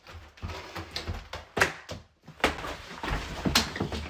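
Scuffling with several sharp thumps, a person knocking against a wooden door and wall.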